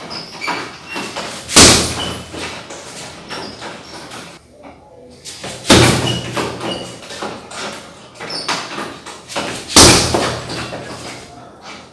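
Three lead-leg side kicks landing on a hanging heavy punching bag, each a loud thud with a short ringing tail, about four seconds apart.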